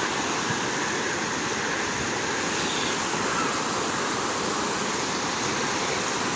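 Waterfall's rushing water, a steady even roar of falling water.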